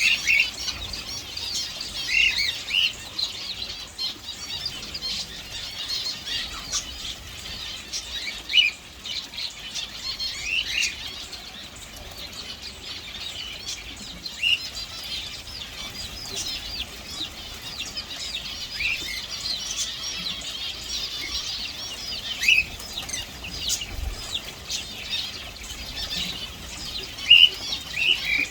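Many small birds chirping and chattering without a break, high-pitched, with louder single chirps standing out every few seconds.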